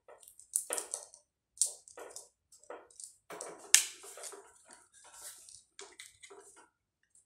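Irregular crackling and clicking of small plastic parts being worked by hand, with one sharp click about halfway through: a firmly glued piece of the radiator's cable fitting being pried loose.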